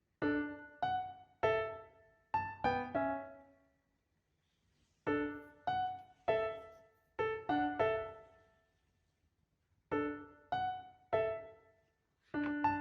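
Background music: a piano or electric-piano tune played in short phrases of plucked-sounding notes, with brief silent pauses between the phrases.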